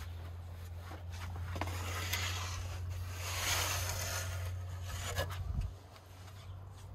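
Khachapuri on a wooden peel scraping across the tiled floor of a stone wood-fired oven as they are slid in. The rough scrape builds, peaks near the middle and stops about five and a half seconds in, with a couple of light knocks. A low steady hum runs underneath.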